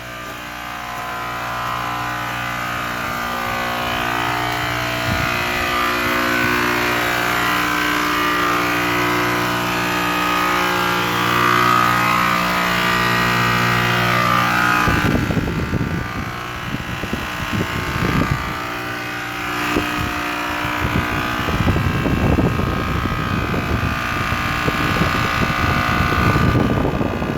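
HVAC unit running with a loud, steady hum made of several tones, growing louder over the first few seconds. From about halfway on, an uneven low rumble comes and goes over it.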